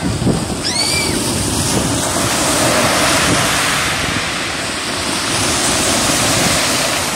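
Small sea waves breaking and washing up a pebble beach, a steady hiss of surf that swells twice.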